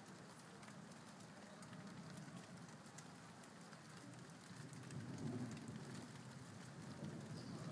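Rain from a supercell thunderstorm falling steadily, with many sharp ticks of single drops striking close by. A low rumble swells about five seconds in.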